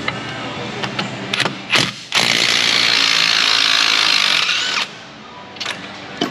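Cordless impact wrench hammering for about two and a half seconds as it loosens a front brake caliper bracket bolt. A couple of sharp clicks come just before it starts.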